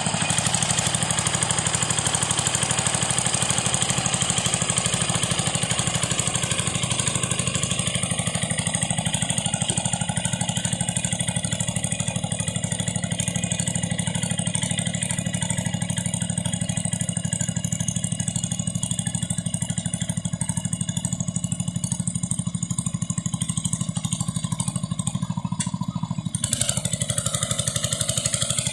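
Wheel Horse garden tractor's engine running steadily under load as it pulls a weighted sled. Its tone changes a couple of seconds before the end, as the front wheels lift.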